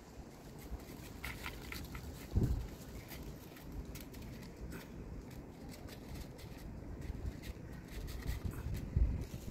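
A cat crunching dry kibble from a plate: a few faint, scattered crunches over a low steady rumble, with a dull thump about two and a half seconds in.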